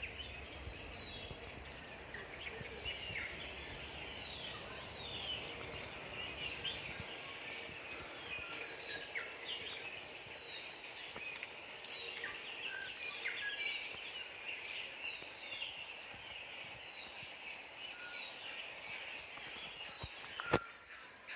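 Many songbirds calling at once, a dense chorus of short high chirps and whistles. A low rumble underneath stops about seven seconds in, and a single sharp click comes near the end.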